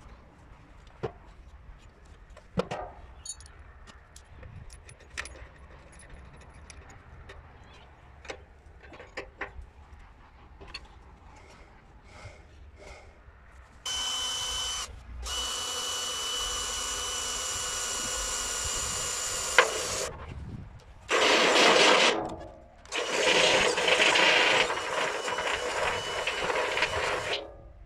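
Cordless drill with a step drill bit boring holes through the side of a barrel: one steady run of about six seconds with a high whine, then two shorter runs close together near the end. Before the drilling, only faint scattered clicks and knocks.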